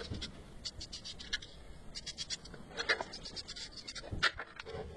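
Marker pen scratching along a steel plate in a series of short strokes, tracing the outline of an old scythe blade.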